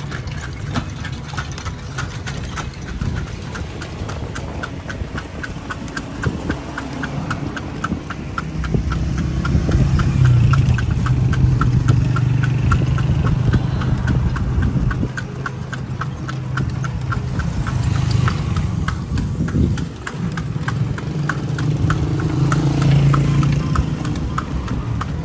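Horse's hooves clip-clopping on a paved street in a steady, even rhythm, about three to four hoofbeats a second, as the horse pulls a kalesa carriage. A low motor engine rumble swells in about a third of the way in and again near the end.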